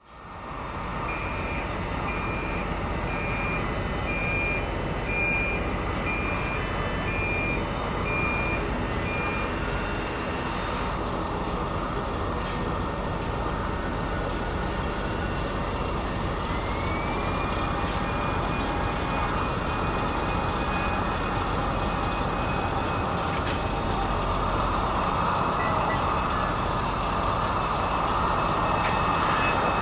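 Airport ambience: a steady wash of vehicle and engine noise, with a vehicle's reversing beeper sounding about once a second for the first third. About halfway through, a higher whine rises and then holds.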